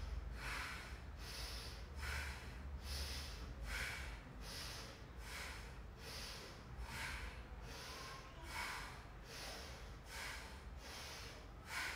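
A woman breathing audibly in a quick, even rhythm, one inhale and one exhale about every second, paced to a yoga arm-opening exercise.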